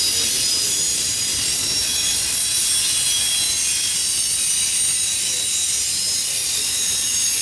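Intermodal freight cars carrying truck trailers rolling past, a steady rumble of wheels on rail with several high-pitched squealing tones from the wheels.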